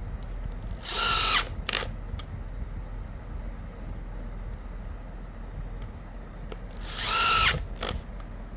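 Electric drill/driver motor running in two short bursts about six seconds apart. Each burst spins up into a steady whine for under a second, then gives a brief second spurt.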